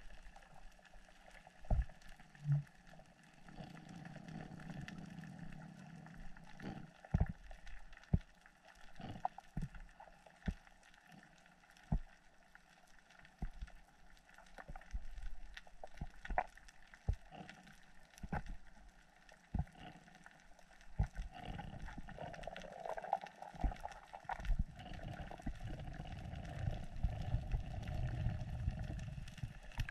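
Underwater ambience: muffled water movement with scattered sharp clicks and knocks, the water rush swelling in the last several seconds.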